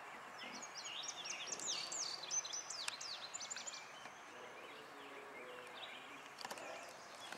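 A songbird singing a quick run of varied chirping phrases for about three seconds, over a steady outdoor background hiss. A few faint clicks come near the end.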